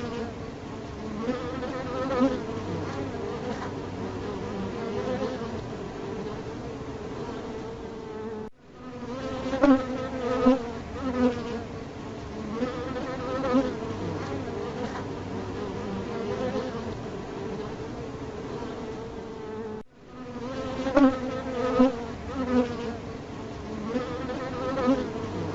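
Bees buzzing: a continuous wavering hum with brief louder swells, as of bees passing close. It cuts out for a moment twice, about a third and about three quarters of the way through.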